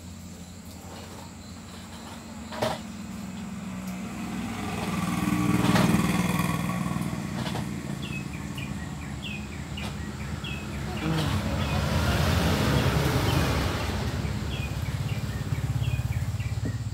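Low rumble of passing motor vehicles, swelling about five seconds in and again around eleven to fourteen seconds, with a sharp click about three seconds in and short high chirps repeating through the second half.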